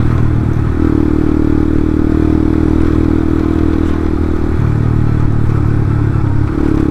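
Yamaha Byson (FZ16) single-cylinder four-stroke engine, fitted with a Honda Tiger carburettor, running steadily while the motorcycle is ridden. The engine note shifts slightly about a second in and again a little past halfway.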